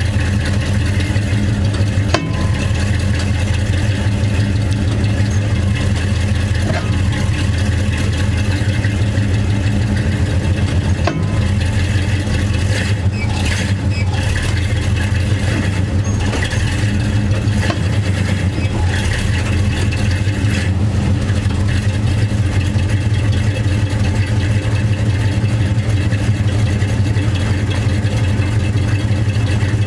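Drivetrain of a 1978 Chevrolet C10 running, with the driveshaft spinning the 12-bolt rear differential: a steady, loud mechanical drone with a fast rhythmic beat. It is the grinding from inside the differential that the owner blames on pinion backlash that has backed off, and suspects of causing internal damage.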